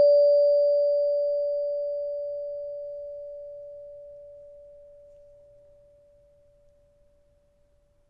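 Metal tone bar of an electric door chime ringing on after a single strike, with a biscuit tin over top of it. One clear, steady note that fades slowly over about six or seven seconds; a faint high overtone dies away within the first few seconds.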